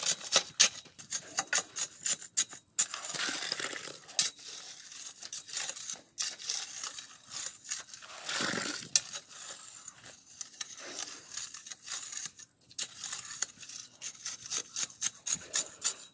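A steel bar tamping backfill soil around a concrete post in its hole: many irregular sharp metal clinks and knocks, with a few longer gritty scrapes of soil and gravel.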